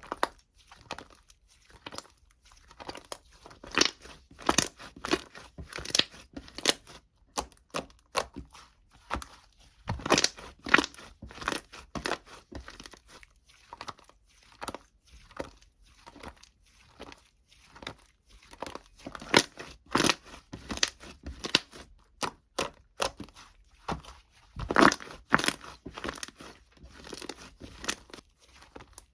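Irregular crinkling and crackling, with the loudest clusters of sharp crackles a few seconds apart, in a small room.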